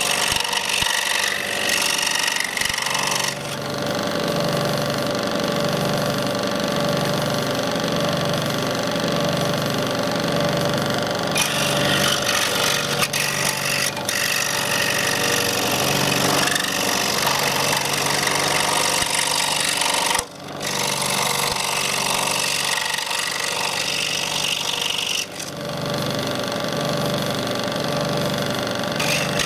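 Scroll saw running steadily, its reciprocating blade cutting through a walnut shell. The cutting noise grows louder and fades several times as the nut is fed into the blade and turned, with a brief dip about two-thirds of the way through.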